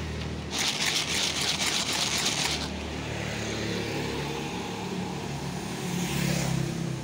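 Passing road traffic, with engines running by on the street. About half a second in, a loud rustling hiss lasts about two seconds, and near the end a motorcycle passes.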